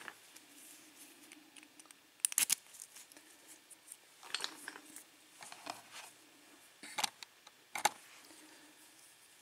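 Scattered small clicks and light taps of a padlock's core and tools being handled: a quick double click, then four more single clicks spread over several seconds.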